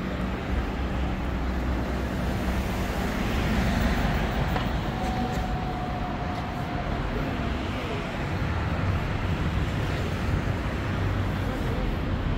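Steady city road traffic: cars and other vehicles running past with a low engine hum, and a faint thin tone held for about two seconds midway.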